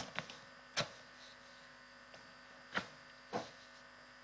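Quiet room tone with a faint steady electrical hum, broken by three brief soft taps: one about a second in and two close together around three seconds in.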